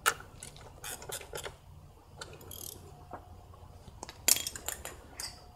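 Socket ratchet clicking as a 10 mm nut is snugged down, in two runs of quick clicks, the louder one about four seconds in.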